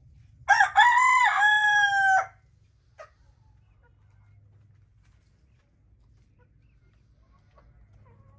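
A rooster crows once, starting about half a second in and lasting under two seconds, ending on a long held note.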